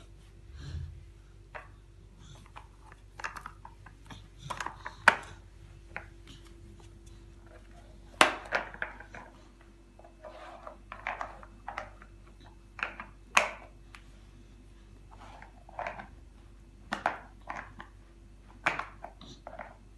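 A small plastic roller brush being handled and knocked on a carpet: irregular clicks, knocks and scrapes of plastic, with a handful of sharper, louder knocks.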